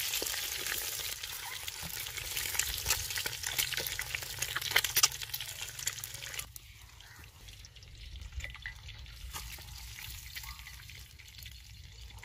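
Boiled eggs sizzling in hot oil in a metal karahi, with sharp clicks of a wooden spoon against the pan as the eggs are lifted out. About six and a half seconds in, the sizzle drops away abruptly to a much quieter background.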